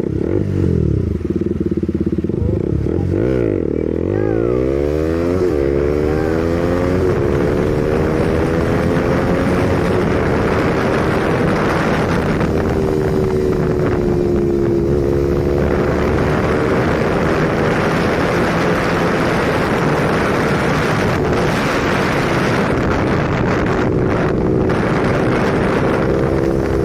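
KTM RC 200's single-cylinder engine pulling away and accelerating up through the gears, its pitch rising in several sweeps over the first few seconds, then cruising at a fairly steady speed with a steady rush of wind on the microphone.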